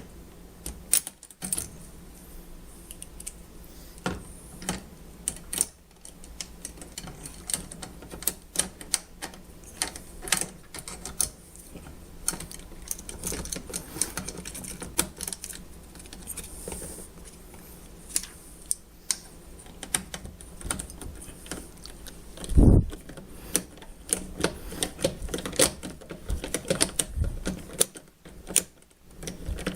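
Irregular clicks and taps of hand tools and metal fittings being worked, as a brass 90-degree elbow is wrenched off a dishwasher fill valve. One heavy knock comes about three-quarters of the way through.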